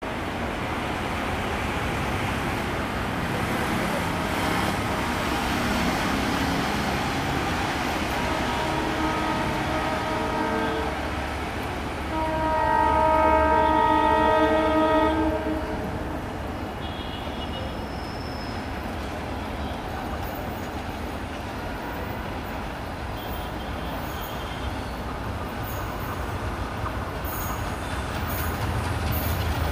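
Bangladesh Railway locomotive horn of an approaching train, sounding from a distance: a fainter blast about a third of the way in, then one louder multi-note blast lasting about three seconds near the middle. It sounds over steady background noise, with a low rumble building near the end as the train draws closer.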